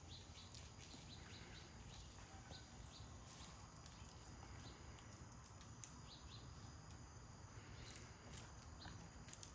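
Near silence: faint outdoor ambience with scattered brief, faint high chirps from small animals or birds.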